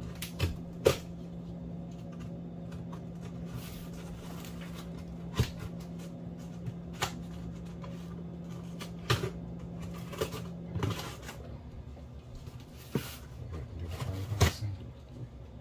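A box cutter slicing along packing tape on a cardboard box, with scattered clicks and knocks of the blade and hands against the cardboard. A steady low hum runs underneath and stops about two-thirds of the way through.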